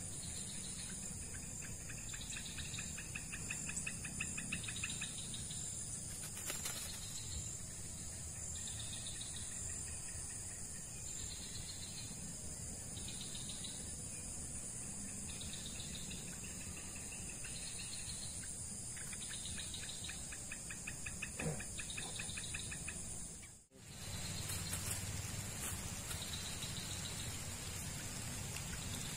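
Riverside insects and birds: a steady high insect drone, a short call repeated every second or so, and two stretches of rapid trilling, over a low steady rush. The sound drops out for an instant about three-quarters of the way in.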